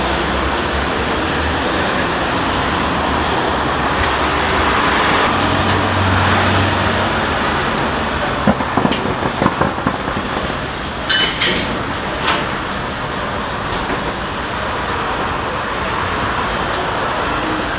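Steady street traffic noise, with a few short clinks and knocks around the middle as the metal-rimmed lids of wooden dumpling steamers are handled.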